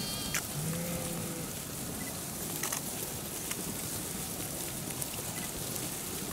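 A flock of sheep grazing on lush ryegrass, their bites tearing and crunching the grass in a steady crackle with scattered clicks. A brief low bleat about a second in.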